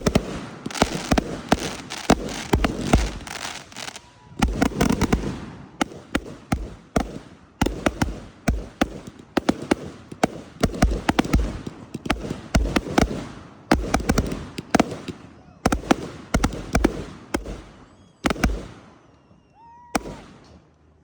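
Fireworks going off in rapid barrages: loud bangs and booms with dense crackling between, in waves that thin out near the end, where a few faint whistles rise.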